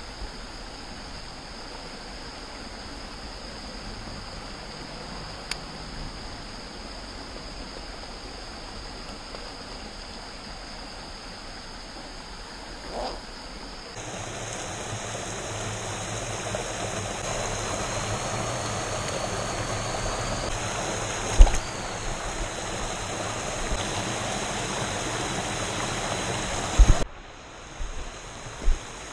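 Small mountain stream running over stones, a steady rushing of water that grows louder about halfway through. A few sharp knocks stand out, the loudest about two-thirds of the way in.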